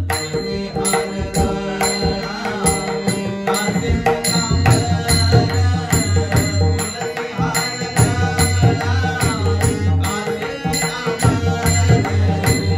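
Marathi devotional bhajan: a male voice singing a wavering abhang melody over the pakhawaj, whose deep bass strokes sound repeatedly, with a quick even metallic beat keeping time above.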